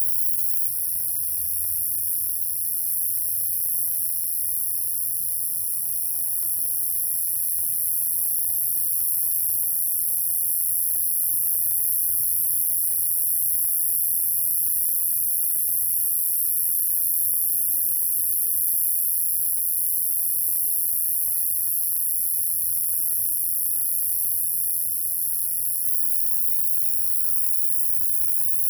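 Spring night ambience outdoors: a loud, unbroken, very high-pitched shrill hiss, with faint scattered short calls beneath it.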